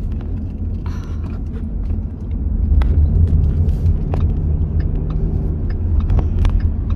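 Car interior rumble from the engine and road while driving, getting louder about two seconds in, with a few small clicks and knocks.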